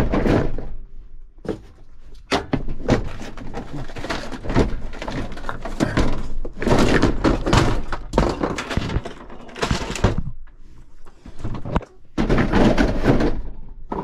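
Irregular thunks, knocks and clattering in quick succession, with a brief lull about ten seconds in and a louder cluster around twelve to thirteen seconds.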